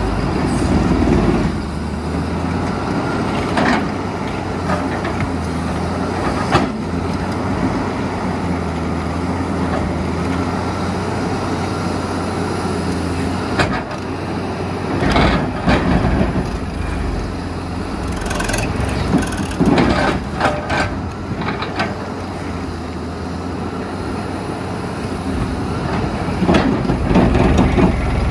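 Terex RH30F mining excavator's diesel engine running steadily under load while its Xcentric XR80 ripper breaks rock. Sharp knocks and cracks of rock breaking come in clusters, densest around the middle and near the end.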